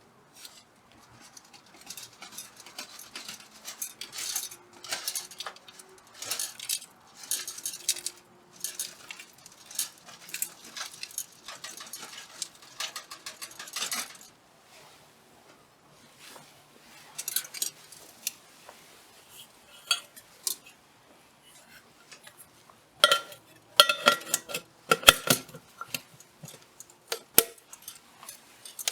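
Irregular clinking and clattering of small hard objects, like tableware knocked together, with a louder run of ringing clinks about 23 seconds in.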